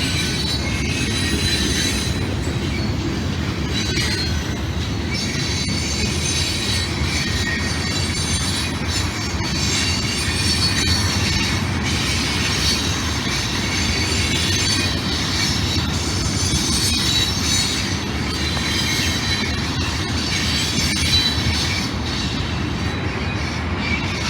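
Train cars rolling past with a steady rumble, the wheels squealing on the rails in high, wavering tones that come and go.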